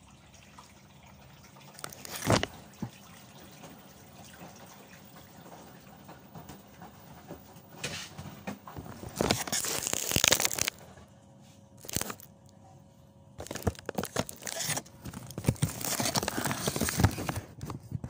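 LG front-loading washing machine filling, water spraying into the drum with a faint steady hiss. Over it come loud bursts of crackling rustle: a short one about two seconds in, a longer one around the middle, and a run of them in the last few seconds.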